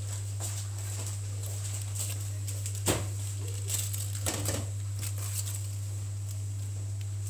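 Steady low hum with a faint high whine over it. Over that come small clicks and rustles of a piping bag and flower nail being handled, the sharpest click about three seconds in and a few more a second later.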